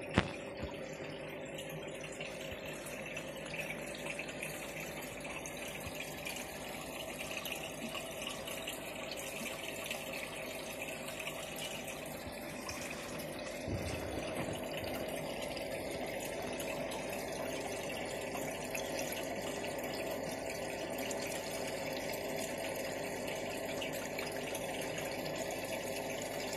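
Steady running water with a low hum, typical of an aquarium's circulation pump and water flow. A sharp click comes right at the start, and the water grows slightly louder about halfway through.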